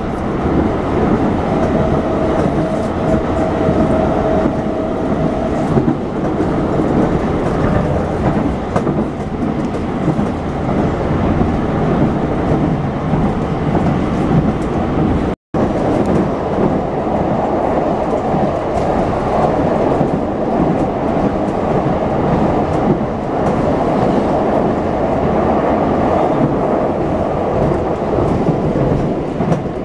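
Running noise heard from inside a CAF articulated electric multiple unit moving at speed: a steady rumble of wheels on rail. A steady tone sounds over it a couple of seconds in and stops a few seconds later. About halfway through, the sound cuts out for an instant.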